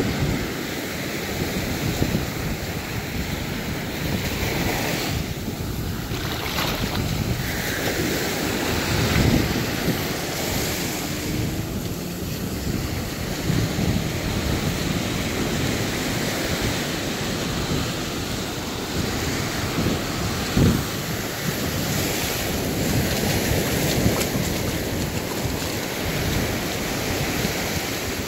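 Small ocean waves breaking and washing up onto a sandy beach in a steady hiss, with wind buffeting the microphone in low rumbling gusts a few times.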